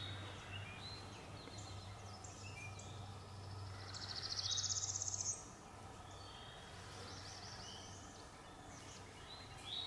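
Songbirds chirping and calling, with one loud, rapid trill that rises in pitch for about a second and a half, about four seconds in. A low steady hum underneath stops as the trill ends.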